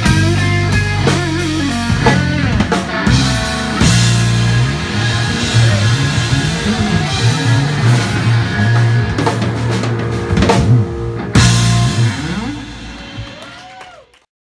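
Live blues-rock band of electric guitar, bass and drum kit playing the end of a song. A final crash comes about eleven seconds in, then the guitar rings on with bending notes as it fades out.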